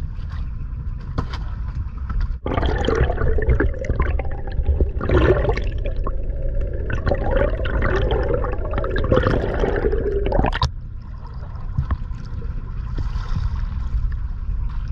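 Water gurgling and sloshing around a camera held underwater, starting suddenly about two seconds in and cutting off sharply about ten seconds in. A low steady rumble runs underneath throughout.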